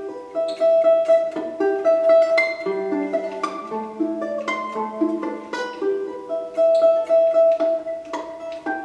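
Solo round-bodied plucked string instrument of the domra kind playing a light, quick piece: a high note that keeps returning over a moving lower melody, with a low note held through the middle of the passage.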